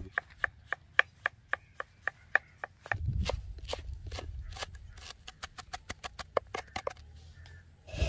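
Large knife chopping on a wooden cutting board, first through tomato slices and then through coriander leaves: sharp, even strokes about four a second, quickening near the end.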